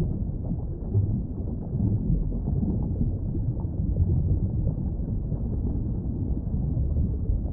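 Steady, muffled underwater rumble with no distinct calls or clicks, only low-pitched noise.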